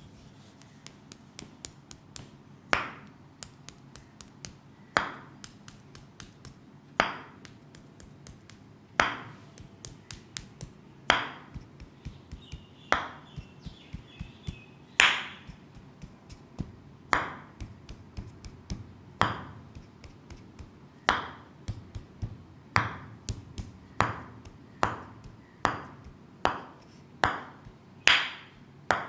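Rhythmic percussive massage strikes on a leg: a loud slap about every two seconds with lighter taps in between, quickening to about one a second in the last third.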